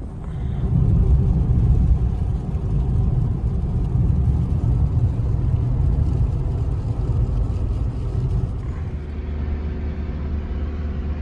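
A loud, steady low rumble that starts suddenly and eases a little about eight seconds in.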